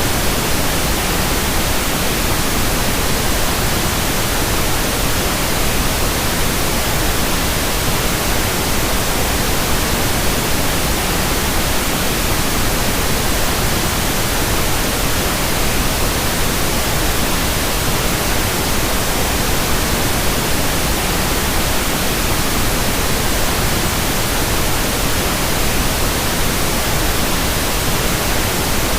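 Steady generated noise played as a tinnitus masking sound: a constant hiss, even from deep to high pitch, with no tones, beats or changes.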